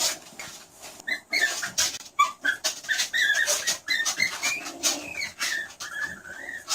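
Skunk squeaking and chirping: a quick run of short, high squeaks that bend up and down in pitch, with sharp clicks between them.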